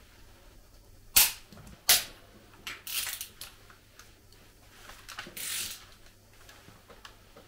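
Sharp clicks of a wrench on cylinder head bolts: two loud snaps about a second in and just under a second later, a few smaller clicks around three seconds, and a short rattle at about five and a half seconds, typical of a click-type torque wrench reaching its set torque.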